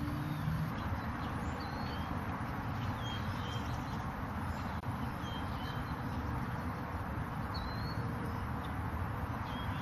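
Birds chirping now and then, with short high notes every second or two, over a steady low background rumble.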